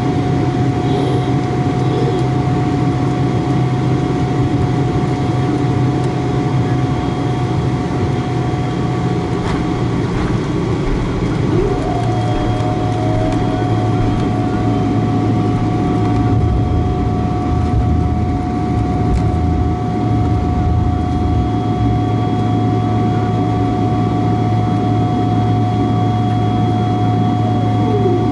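Steady cabin noise inside a Boeing 777-300ER taxiing with its GE90 engines at idle: a low hum under several steady whining tones. One tone drops out for about two seconds near the middle, then comes back.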